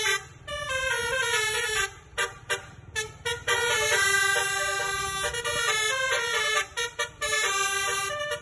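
Basuri multi-tone 'telolet' bus horn playing a melody in stepped notes, mixing long held notes with quick runs of short toots.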